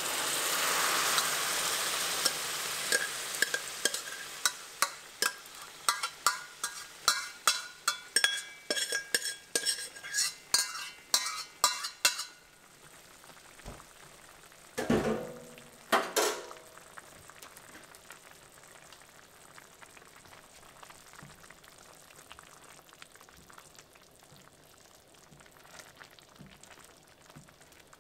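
Cooked red lentils and their water poured into a hot pan of fried onion, garlic and spices, hissing and sizzling at first as the liquid hits the oil. Then a spoon knocks and scrapes the last lentils out of the pot, about two knocks a second. Two louder clunks follow, then a faint simmer.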